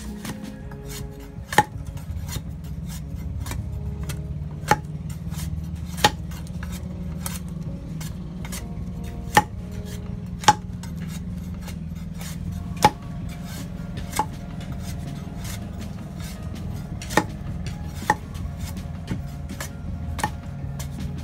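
Machete chopping at a long pale wooden pole: sharp strikes at an uneven pace, about ten loud ones with fainter taps between, over a steady low hum.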